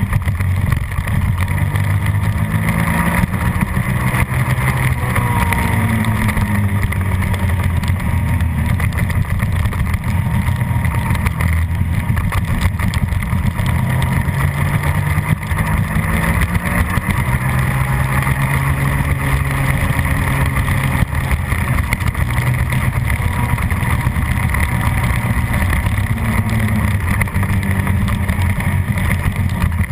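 Suzuki SV650 90-degree V-twin racing engine at high revs, its pitch rising and falling again and again as it is run up through the gears and backed off for corners.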